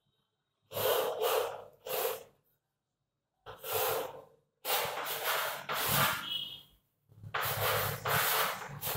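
Chalk scraping on a blackboard in a series of short strokes as lines are drawn, with a brief high squeak of the chalk about six seconds in.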